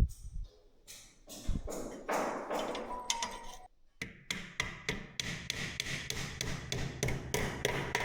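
Hammer blows: a few scattered strikes, then from about four seconds in a fast, even run of about five strikes a second.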